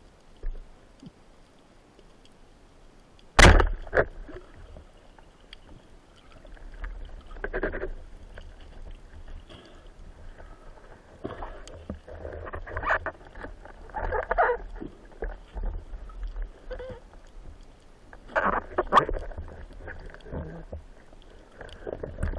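Underwater sound from a freediving spearfisher's camera: a sharp knock about three and a half seconds in, then irregular bursts of rushing, bubbling water as the diver swims along the bottom.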